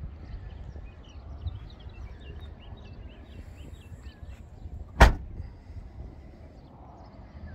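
Tailgate of a SEAT Ateca being shut, closing with a single sharp slam about five seconds in.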